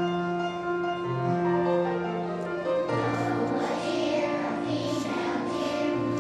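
Background music of long held chords, growing busier about three seconds in.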